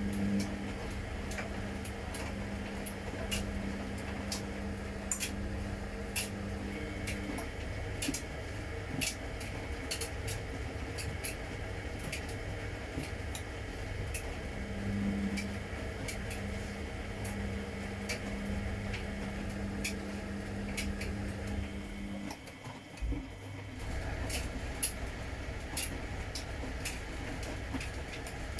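Washing machine running a wash cycle: a low rumble goes on throughout, while the drum motor hums for several seconds, pauses for several seconds and starts again, with many small clicks and knocks from the turning drum.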